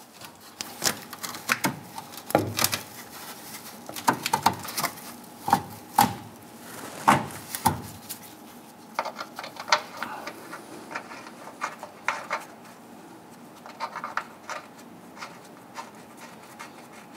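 Irregular small clicks, taps and scrapes of a gloved hand working a metal fuel tank strap onto its stud and starting the nut by hand.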